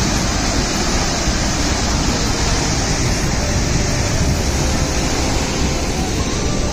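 Steady rushing of a flood-swollen river, fast muddy water churning past a bridge.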